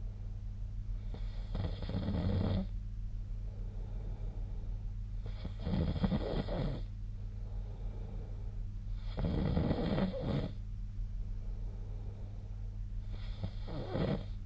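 A sleeping person snoring: four rhythmic snores, one about every four seconds, each lasting a second or so, over a steady low hum.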